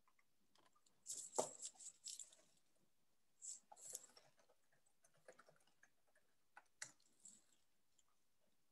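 Faint computer keyboard typing over near silence: irregular clusters of light key clicks, with a few single taps near the end.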